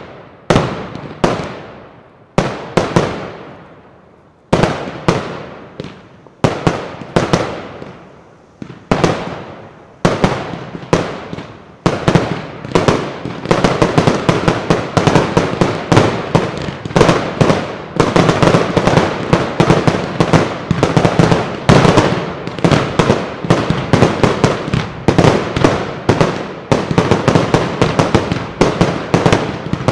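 Aerial fireworks bursting in the sky, each bang echoing. At first they come singly, about one a second, then from about twelve seconds in a dense, rapid barrage of bursts follows.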